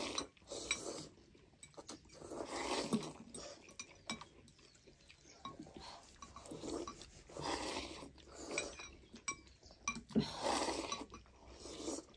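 Thukpa noodles and broth being slurped, in several noisy swells, with forks and spoons clinking against glass bowls in between.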